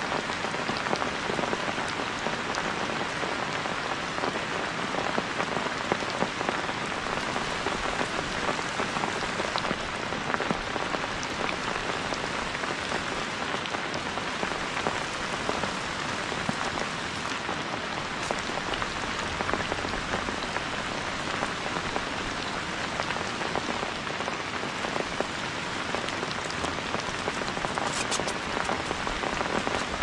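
Heavy rain falling steadily, a dense unbroken hiss of drops.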